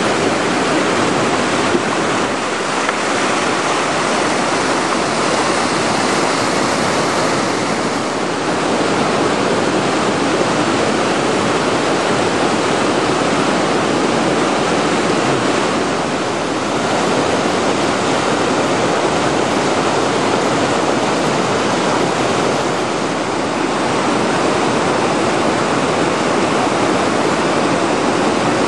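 Whitewater river rapids at about 1700 cfs: a loud, steady rush of churning water.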